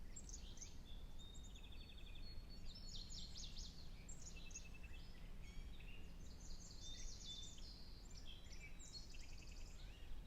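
Several birds chirping and singing in quick overlapping trills and calls, over a low steady rumble.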